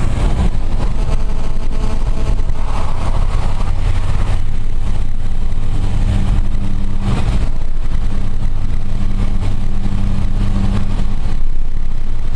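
Car engine and road noise heard from inside a moving car: a steady low hum over a rumble, with a couple of brief louder rushes of noise partway through.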